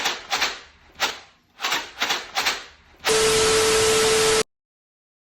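A quick run of about eight short, sharp noisy bursts, then a loud steady hiss with a hum tone through it that lasts about a second and a half and cuts off abruptly into silence.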